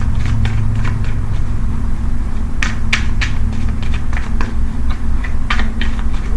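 A deck of tarot cards being shuffled and handled: scattered soft clicks and flicks, a few sharper ones about three seconds in, over a steady low hum.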